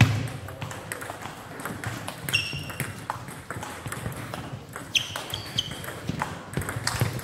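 Table tennis ball clicking back and forth off paddles and table during a fast doubles rally, with a sharp knock right at the start and a few short high-pitched pings.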